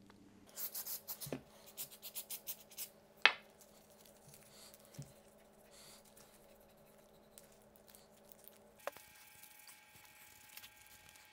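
A Ballistol aerosol oil can sprayed in a quick run of short hisses onto a polished steel hammer head. Then a single sharp knock, followed by faint rubbing as the oil is worked over the head with gloved fingers and a cloth.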